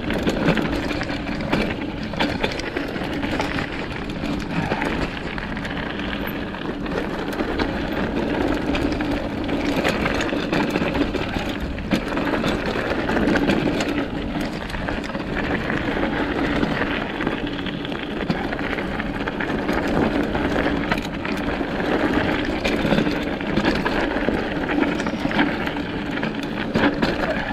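Mountain bike riding down a dirt singletrack: a steady rush of tyre and riding noise, broken by frequent short rattles and knocks as the bike goes over rough ground.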